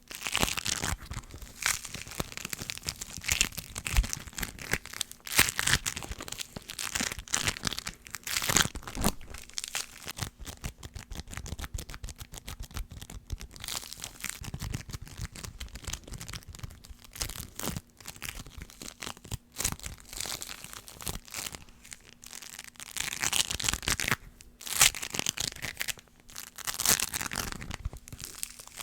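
Sticky triggers: tacky surfaces being pressed and peeled apart, giving crackling, tearing sounds in irregular swells.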